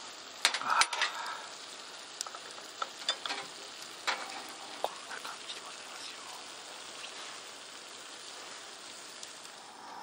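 Shrimp and king oyster mushroom ajillo sizzling steadily in hot oil in a cast-iron Dutch oven, with a few sharp clicks and knocks in the first second and scattered ticks until about halfway through.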